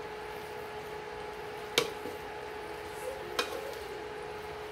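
Cooked spaghetti being stirred and tossed through a creamy sauce in a stainless steel pot, with the wet noodles squishing. The utensil clinks sharply against the pot twice, about a second and a half apart, over a steady hum.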